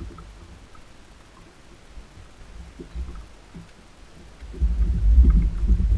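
Wind buffeting an action camera's microphone on a boat deck in rough, rainy weather: a low rumble that surges much louder about four and a half seconds in, with a few faint ticks.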